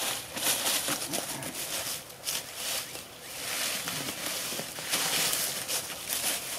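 Footsteps through dry fallen leaves, with the irregular rustle and crackle of leaf litter as a person walks and handles sticks.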